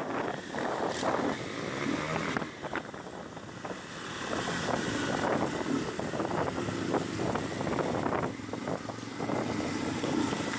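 Wind rushing and buffeting over the microphone of a moving Honda CB 300 motorcycle, with crackling gusts and road noise beneath.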